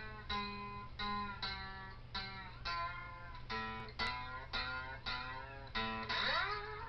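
Slide guitar played lap-style, a melody of single plucked notes at about two a second, with notes sliding up in pitch near the end.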